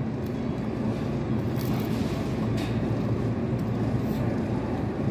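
Steady low rumble of restaurant dining-room background noise, with a few faint light clicks.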